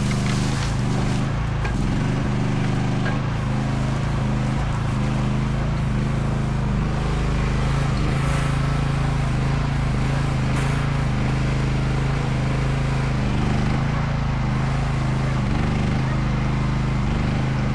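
Chinese mini excavator's engine running steadily as the machine works.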